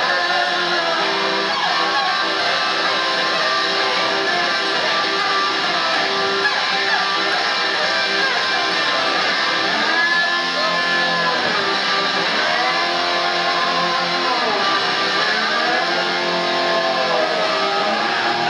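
Solo amplified lap-held stringed instrument played with a slide, with held notes underneath and several notes that glide up and back down in pitch, heard through a concert PA.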